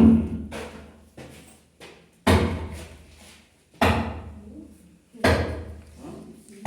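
A series of heavy thumps, about one every one and a half seconds, each sudden and then dying away over about a second.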